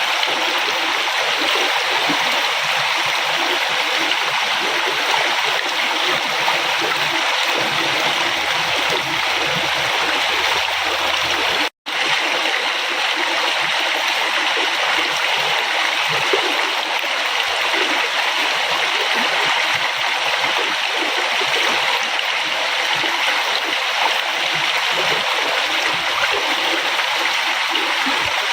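A river flowing steadily, an even rushing of water. It is broken by a split-second dropout about twelve seconds in.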